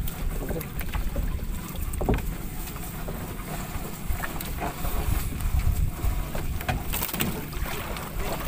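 Wind rumbling on the microphone, with scattered knocks and rustles from hands hauling a fishing net aboard a wooden outrigger boat.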